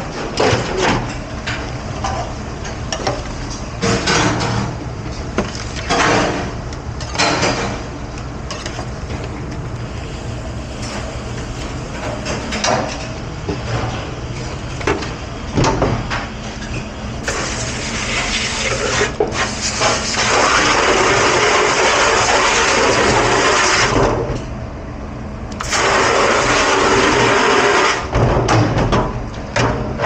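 Dishes and dish racks clattering and knocking in a commercial dish station over a steady low machine hum. Just past the middle a loud steady rush starts, runs for several seconds, stops, and comes back briefly near the end.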